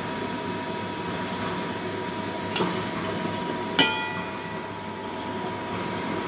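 Steady rush of kitchen background noise with a faint hum, broken by a short scraping rush and then, about four seconds in, one sharp metallic clink of cookware on a steel pot that rings briefly.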